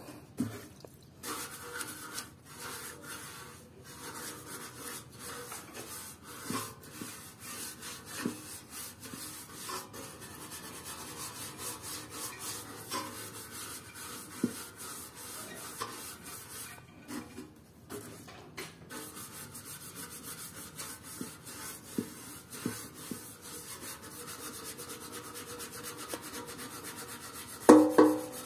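A stiff hand brush scrubbing the painted steel skin of a motorcycle fuel tank wet with paint remover, in a steady run of quick back-and-forth rasping strokes as the softened paint is worked off.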